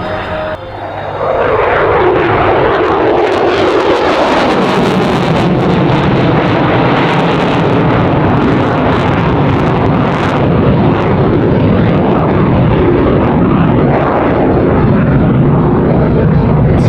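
F-22 Raptor and P-51 Mustang flying past in a heritage-flight formation. Loud aircraft engine noise swells about a second in, with a falling pitch as they pass, then holds steady as a dense rush.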